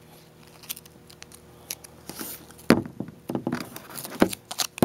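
Handling noises from a Zippo lighter and its packaging: scattered light clicks and taps, a short rustle a little after two seconds in, and a sharp click a little later.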